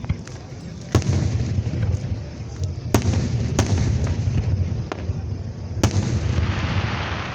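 Aerial firework shells bursting: a few sharp bangs a second or two apart, with low booming rumble rolling on between them and a crackling hiss near the end.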